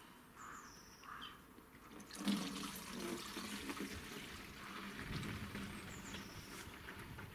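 Liquid poured from a plastic jug through a plastic funnel into another jug. The steady pouring starts about two seconds in, after a few faint scrapes.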